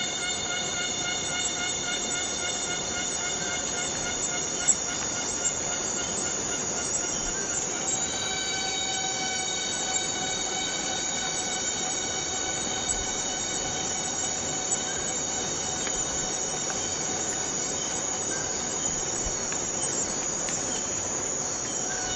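Cicadas buzzing steadily in one continuous drone, its pitch stepping up slightly about eight seconds in.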